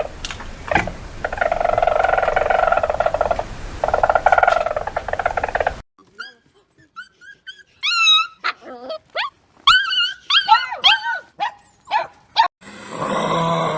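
Animal calls in separate cut-together takes: a drawn-out raspy call for the first few seconds, then after an abrupt cut a run of short, high, squeaky whines and yips that glide up and down, and a brief raspy call near the end.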